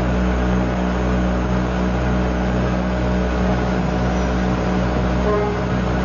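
Steady low hum with an even hiss and no other events: the background noise of an old film soundtrack.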